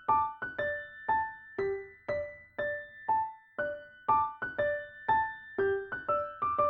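Background music: a gentle keyboard melody of single struck notes, about two a second, each dying away.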